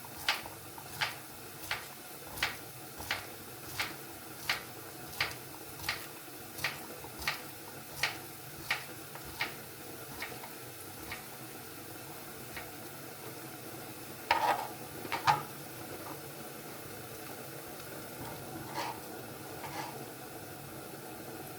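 Kitchen utensil work: sharp, evenly spaced clicks, about three every two seconds, growing fainter, then two louder clatters about two-thirds of the way through and a few faint clicks near the end.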